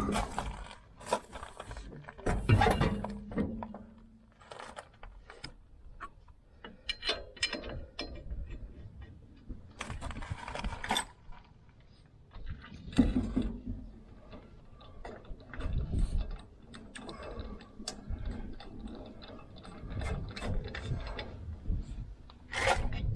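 Hand tools working on a van's rear brake during a brake pad replacement: irregular metallic clicks, knocks and clanks, some in quick runs.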